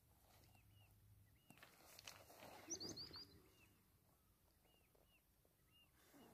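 Faint bird calls: a short chirp repeated about once a second, with a quick run of four higher notes about three seconds in. A soft rustle of noise comes in the middle.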